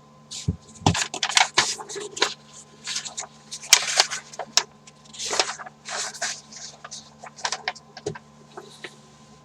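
Irregular clicks, taps and rustles of things being handled, over a faint steady hum.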